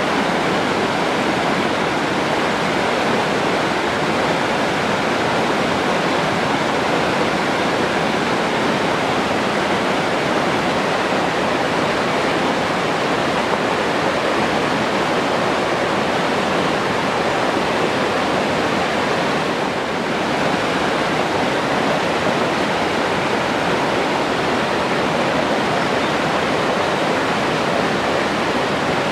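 Forest stream flowing: a steady, dense rush of moving water.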